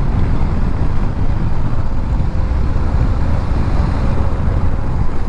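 Wind buffeting the microphone of a GoPro Hero 10 on a moving motorcycle: a dense, steady low rumble, with the motorcycle and road running underneath.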